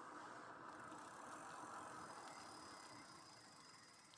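Near silence: faint, steady riding noise from the Espin Sport electric bike rolling along on light pedal assist, fading out near the end.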